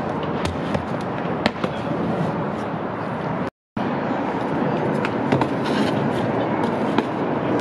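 Steady roar of city traffic with scattered sharp cracks and snaps. The sound cuts out completely for a moment about halfway through.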